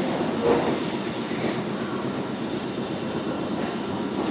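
Nankai 7100-series electric train moving slowly along the platform: a steady rumble of steel wheels on the rails with light clatter.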